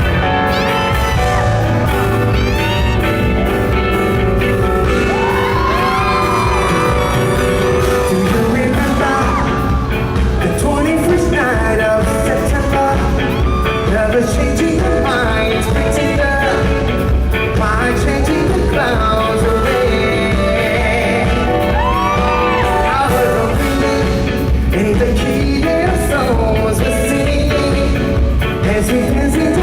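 Live pop music played loud, with a steady heavy bass beat and singing. Audience yelling and whooping can be heard over it.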